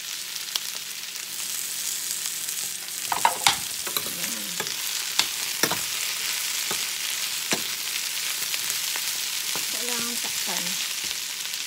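Zucchini and ground meat sautéing in a stainless steel skillet: a steady frying sizzle while a slotted spatula stirs the pan, with several sharp clinks of the spatula against the metal, the loudest about three seconds in.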